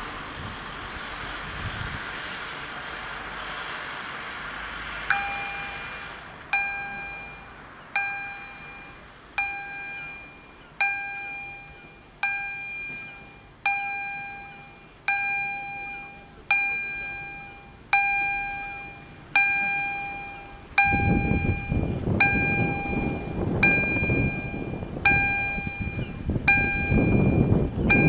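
Level-crossing warning bell of an SZP-1 crossing system, striking about once every second and a half. Each strike is a ringing tone that dies away, and the bell begins about five seconds in. From about three-quarters of the way through, a broad low rushing noise joins the bell.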